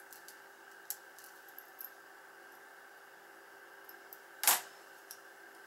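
Small clicks and taps of tweezers and fingers working against a tiny FPV drone's frame as a strap is forced through a narrow gap, with one sharper click about four and a half seconds in, over a faint steady hum.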